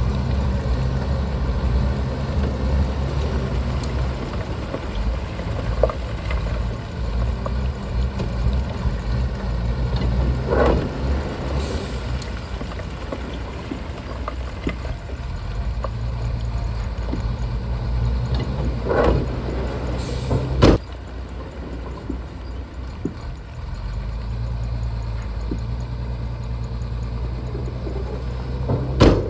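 Shantui bulldozer's diesel engine running steadily, with a few sharp knocks from the machine at work. The engine drops in loudness about two-thirds of the way through.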